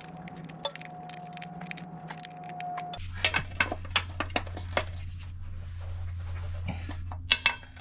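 Combination wrench clicking and clinking against the steel drain plug of a Detroit Series 60 oil pan as the plug is tightened down after an oil drain. Short, irregular metal clicks over a steady low hum that shifts lower about three seconds in.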